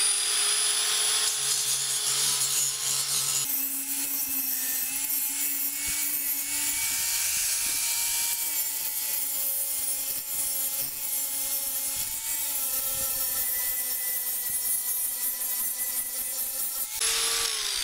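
Electric angle grinder running at speed, then from about three and a half seconds in grinding metal burrs off a drilled hole in a stainless-steel beer keg: its whine drops in pitch under load with a rough grinding hiss, and rises again near the end as the disc comes off the metal.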